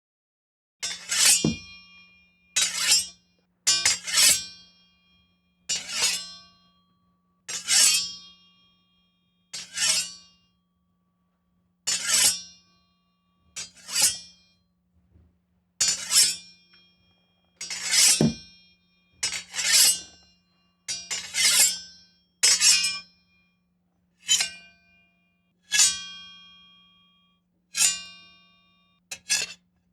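Sword and knife blades drawn from their sheaths, one after another about twenty times. Each draw is a quick metal scrape with a ringing tail that fades out.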